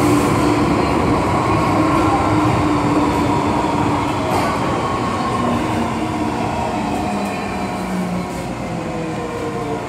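MTR M-train electric multiple unit pulling away from a standstill, its traction equipment giving the eerie whine that rail fans call a ghost-scream, with several tones sliding slowly down in pitch.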